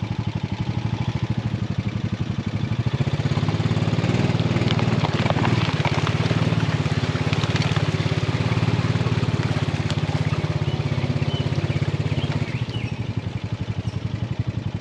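A vehicle engine running with a fast, even pulse as it drives. It gets louder about three seconds in and drops back a little before the end.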